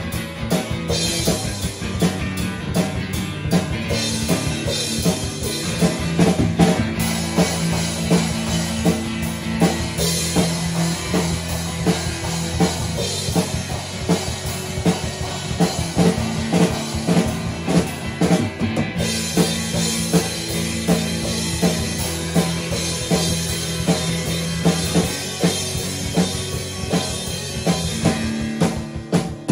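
Instrumental rock music: a drum kit playing a steady beat under guitar, with no singing.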